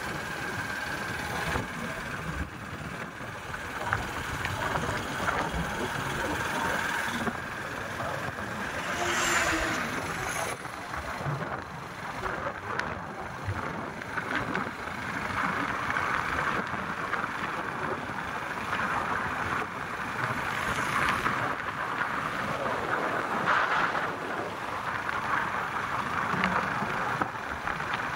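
Motorcycle riding along at speed: the engine running steadily under a constant rush of wind over the microphone.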